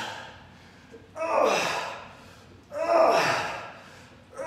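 A man's loud, straining breaths out with each crunch, one about every one and a half seconds, each starting sharply and fading away: the sound of hard effort as he works through the last reps of the set.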